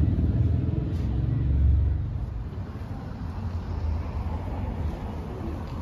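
Outdoor town street ambience: a low rumble, loudest in the first two seconds, fades into a quieter steady background.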